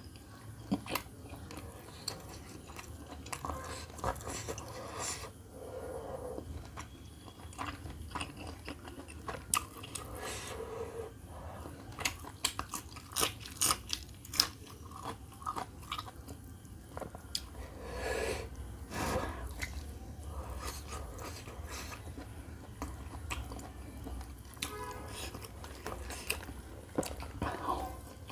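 Close-up chewing and biting of roast chicken, with many irregular wet clicks and smacks of the mouth.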